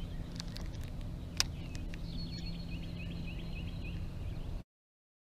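Open-air background with a bird's faint, rapid, repeated chirping song and one sharp click about a second and a half in; the sound cuts off abruptly near the end.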